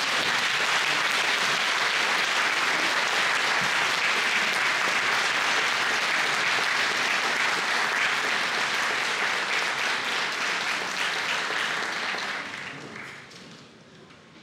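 Audience applauding steadily, the clapping dying away about twelve seconds in.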